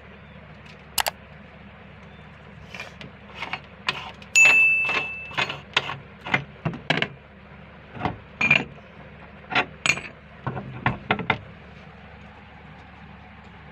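Small hard objects, likely metal, clinking and knocking about a dozen times, one strike ringing on for about a second, over a low steady hum.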